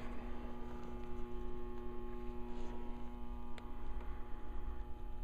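Steady electrical mains hum: a low tone with a ladder of higher overtones, unchanging throughout.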